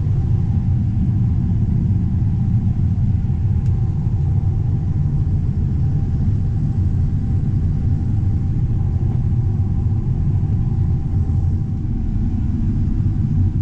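Combine harvester running steadily while harvesting corn, heard from inside the cab: an even low rumble with a faint steady whine above it.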